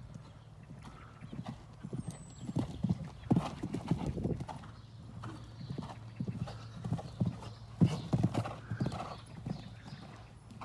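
A horse's hooves thudding on a sand arena as it canters under a rider, in uneven clusters of dull beats that grow louder and fade as the horse passes near and away.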